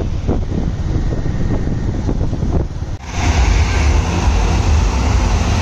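Wind buffeting the microphone, a loud low rumble. About three seconds in it breaks off and gives way to a louder, brighter noise.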